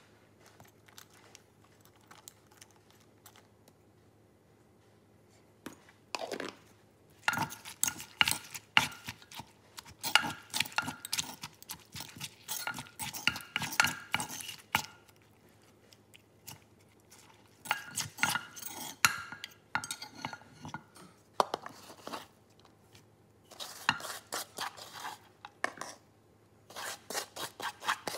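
Wooden pestle knocking and a metal spoon scraping and clinking in a clay mortar as wet salad ingredients are pounded and tossed together. It is quiet at first, then comes in irregular bursts of clatter with short pauses.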